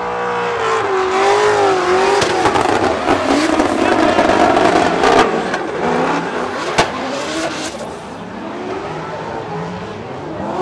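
Drift car sliding sideways at full throttle: the engine note rises and falls as the driver works the throttle, over the rush and squeal of spinning rear tyres. There is one sharp crack about two-thirds of the way through.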